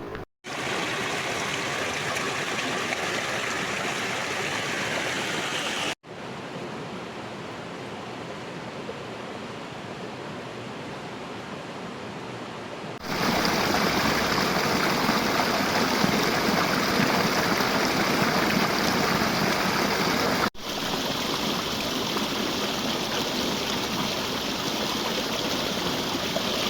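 Steady rush of running water in four stretches joined by abrupt cuts, each at its own level. The loudest stretch is in the middle of the clip.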